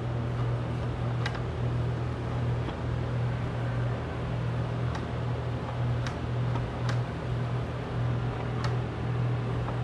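Steady low mechanical hum with an even noisy hiss over it, and a few faint clicks as the plastic and metal parts of the box are handled.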